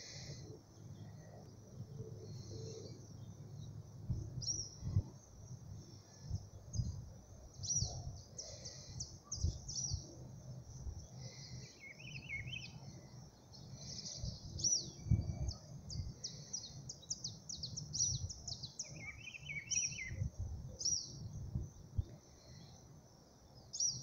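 Several wild birds chirping and trilling: many short high chirps and quick rapid trills, with a few lower twittering bursts about halfway and near the end. Under them runs a low, uneven rumble on the microphone.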